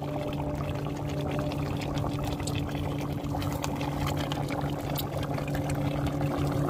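Fish paksiw boiling in an aluminium pot over a wood fire: a steady bubbling hiss with light clicks of a metal ladle against the pot, over a steady low hum.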